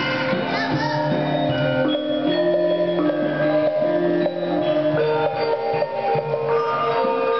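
Javanese gamelan music accompanying a dance, with mallet-struck metallophones ringing out a melody of held notes that step from pitch to pitch. A wavering singing voice fades out about half a second in.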